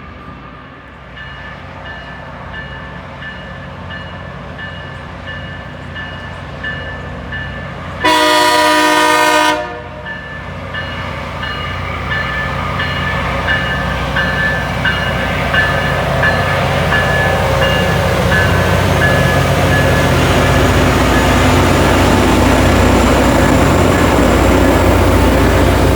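Loram rail grinder on the track: one horn blast of about a second and a half, about eight seconds in, over a steady ding about twice a second. The grinder's rumble and hiss grow steadily louder as it approaches.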